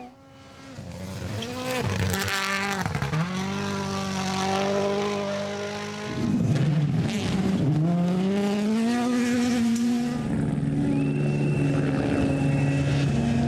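Rally car engine revving hard, its pitch climbing and dropping repeatedly through gear changes and lifts. Near the end it holds a steadier note with a thin high whine.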